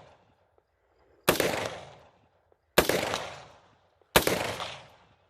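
Three single rifle shots from a Springfield Saint Victor .308 AR-10, fired at a slow, steady pace about a second and a half apart, each crack followed by a rolling echo that dies away over about a second.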